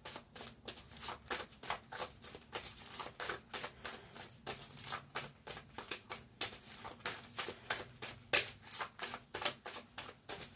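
A deck of cards shuffled by hand: a quick, uneven run of soft card slaps and flicks, about four or five a second, with a couple of louder slaps late on.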